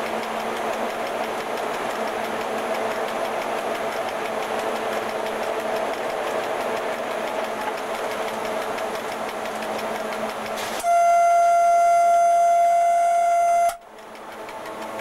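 Steady running noise in the cab of an FS E.656 electric locomotive, with a few low held tones. About eleven seconds in the locomotive's horn sounds one steady, loud blast of about three seconds that cuts off suddenly; the running noise then comes back quieter and slowly builds up.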